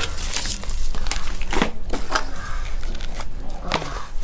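Crinkling and rustling of something being handled, in a quick irregular run of short crackles and scrapes.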